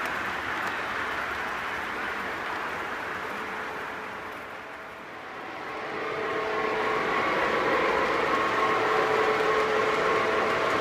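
Lionel O scale model train rolling along the track, a steady rumble of long cars passing that fades to its lowest around five seconds in. From about six seconds it grows louder again as the blue Conrail diesel locomotive comes by, with a steady hum of several held tones over the rumble.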